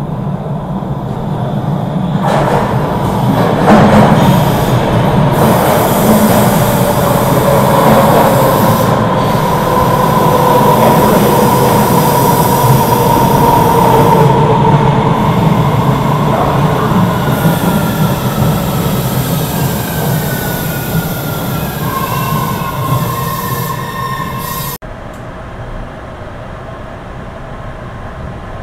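MBTA Red Line subway train pulling into an underground station: a loud steel-wheel rumble with whining and squealing tones, some sliding upward in pitch. About 25 s in the sound cuts suddenly to the quieter, steady rumble of riding aboard a train through the tunnel.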